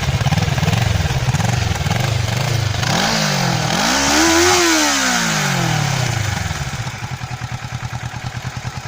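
Kawasaki ER-6n's two-cylinder engine on its stock exhaust, idling, then revved once: the pitch rises from about three seconds in and falls back over the next few seconds. It settles to a lower, evenly pulsing idle near the end.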